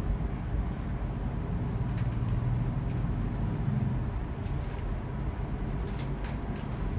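Steady low background rumble, swelling a little in the middle, with a few short sharp clicks: one about two seconds in and several more in the second half.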